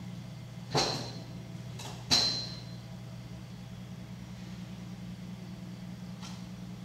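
Steady low hum of an electric potter's wheel running, with two sharp knocks, each with a brief high ring, a little over a second apart near the start.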